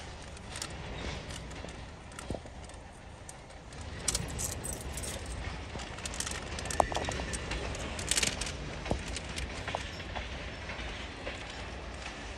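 Loaded freight cars of a train being backed through a grade crossing, rolling with a low rumble and irregular metallic clanks and clicks from wheels and couplers. The sharpest clank comes about seven seconds in.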